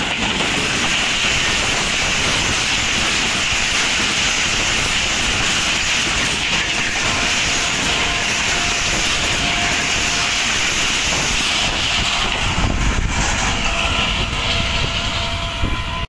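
Express passenger train coaches running past at speed close by: a steady rush of wheels on rail with clatter and a few sharp clicks about three-quarters of the way through. The sound cuts off suddenly at the end.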